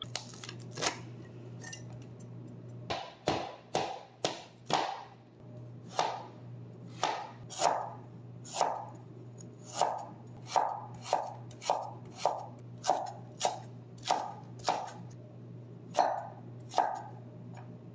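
Chef's knife slicing ginger root and then a garlic clove on a wooden cutting board: about twenty separate sharp knocks of the blade on the board, spaced roughly half a second to a second apart. A steady low hum runs underneath.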